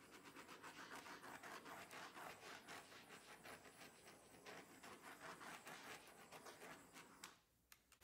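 Faint hiss and fine, rapid crackle of a small handheld torch passed over wet pour paint to pop its air bubbles; it cuts off shortly before the end.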